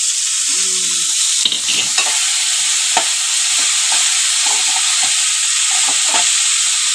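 Chopped green bean pods frying in hot oil in a metal pot, giving a steady sizzle. A metal slotted ladle clicks and scrapes against the pot many times as they are stirred.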